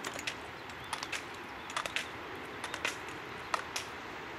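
A dozen or so sharp clicks and clacks at uneven spacing, from inline alpine slalom skaters' poles striking the asphalt and the slalom gates, over a steady faint hiss.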